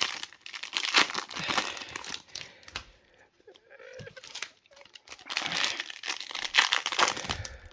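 Trading-card pack wrappers crinkling and tearing as Topps baseball card packs are handled and opened, in two busy stretches with a quieter pause in the middle.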